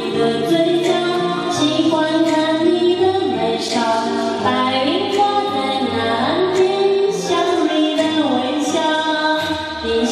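A woman singing a Chinese pop song into a karaoke microphone over its backing track, which has a steady beat.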